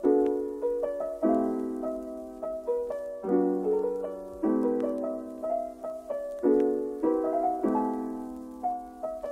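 Background music: a soft piano playing slow chords, a new chord struck every second or two and each left to ring and fade.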